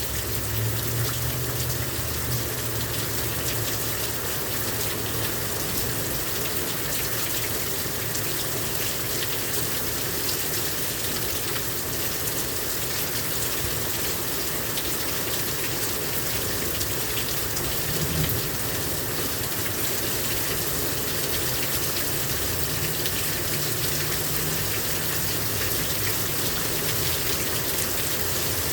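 Heavy rain pouring down steadily, a dense hiss of drops hitting surfaces. A low rumble swells and fades underneath at times.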